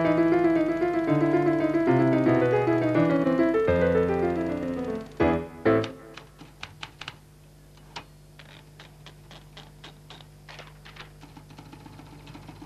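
A short musical jingle of stepped, descending notes ends in two heavy hits about five seconds in. Irregular typewriter keystrokes follow, quieter.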